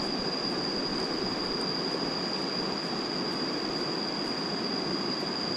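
Steady rush of flowing river water, with a constant high-pitched insect drone over it.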